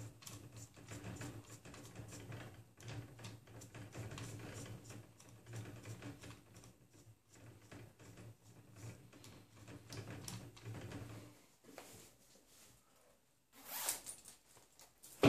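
Small clicks and rustles of hands fitting parts onto a 3D printer's plastic X carriage, over a low steady hum that stops about eleven seconds in. Near the end comes a louder, brief rasping rustle of a sweatshirt being taken off.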